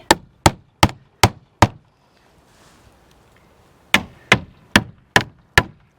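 Hammer driving roof tacks back into a shed roof: two runs of five quick, sharp blows, about two and a half a second, with a pause of about two seconds between them.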